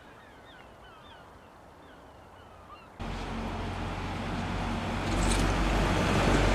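Birds calling with short, repeated chirps for about three seconds. Then an abrupt cut to a much louder, steady rushing noise with a low hum, which grows louder again about five seconds in.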